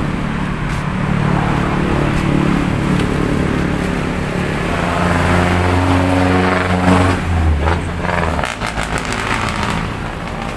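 A motor vehicle engine running close by with a steady low note that shifts in pitch partway through, then cuts off about eight and a half seconds in, followed by a few clicks and rattles.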